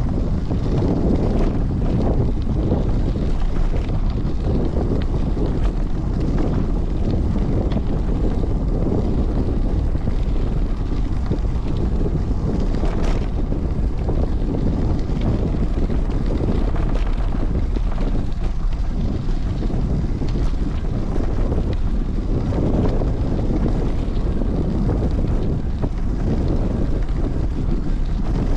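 Wind buffeting the microphone of a rider on a moving bicycle: a loud, steady, low rumble.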